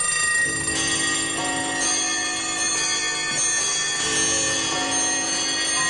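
Bell-like chiming music: sustained, overlapping ringing tones, with new notes coming in every second or so.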